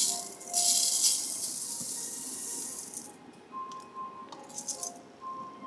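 Uncooked rice grains poured into a metal rice-cooking pot: a hissing rattle for about two and a half seconds, then a few shorter rattles as the last grains go in.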